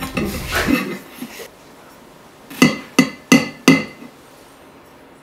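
A goblet handled and then knocked against a wooden tabletop four times in quick succession, sharp clinks about a third of a second apart, each with a short ringing tone.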